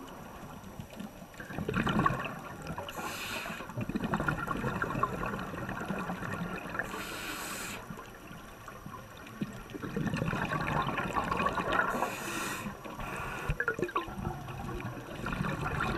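Scuba divers' breathing underwater: exhaled air bubbles from the regulators gurgling in surges every few seconds, with a short high hiss three times.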